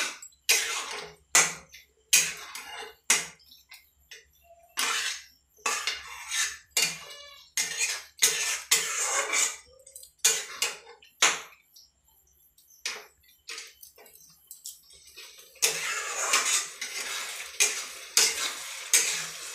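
A spatula scraping and knocking against a kadhai as frying onion-and-spice masala is stirred, in irregular strokes about one or two a second. Near the end the strokes come thicker, over the sizzle of the masala frying.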